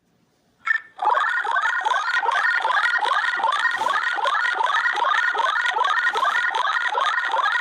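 Electronic emergency alert alarm tone: a rapid run of short rising sweeps, about three a second, over a steady higher tone. It starts about a second in, just after a brief blip.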